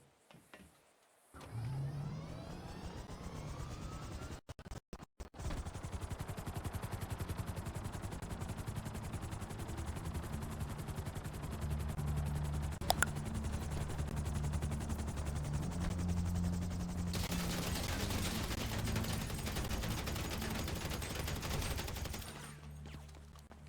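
Aircraft engine running with a rapid, even pulsing and a steady low hum. About two-thirds of the way through it gets louder and hissier, then fades away near the end.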